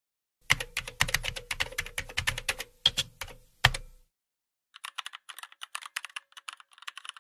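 Computer keyboard typing sound effect: a quick run of key clicks for about three and a half seconds, then after a short gap a second, fainter and thinner run of clicks.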